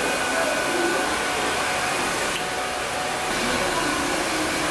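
Hair dryer blowing steadily: a constant rush of air with a faint, steady motor whine. Its hiss dulls briefly about halfway through.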